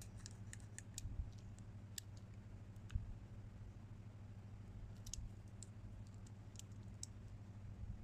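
Scattered small metallic clicks and ticks from a three-digit combination cam lock being handled and its number wheels turned, with one louder knock about three seconds in, over a low steady hum.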